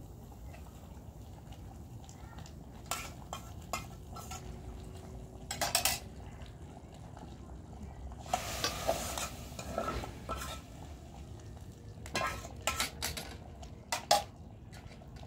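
Metal spoon scraping and clinking against a metal frying pan as fried food is scraped out of it, in scattered clinks with a second-long hissing scrape just past the middle and the sharpest clink near the end.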